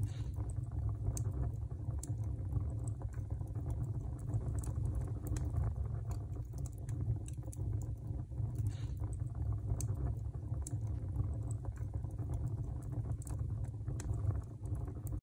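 A steady low rumble with scattered faint small clicks and ticks.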